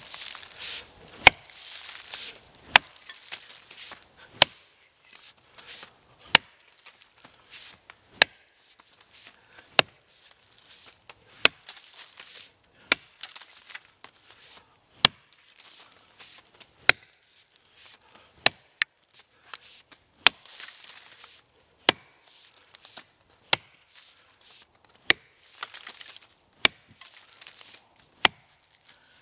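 Axe chopping into an oak's roots at ground level: sharp, evenly spaced blows, about one every second and a half.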